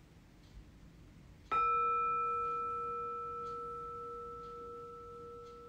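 Singing bowl struck once with a mallet about one and a half seconds in, then ringing with a steady tone and higher overtones that fade slowly.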